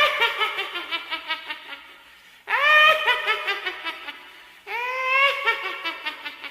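Witch cackle: a high, nasal shriek of laughter that rises in pitch and then breaks into rapid, fading 'heh-heh-heh' pulses, repeated three times.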